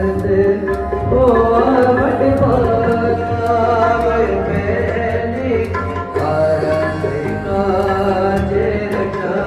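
Background music: a Hindi song with a singing voice over drums and a steady beat.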